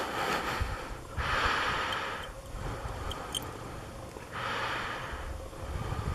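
A person breathing close to the microphone: two breaths about three seconds apart, each a hiss lasting about a second, over a low rumble from the phone being handled.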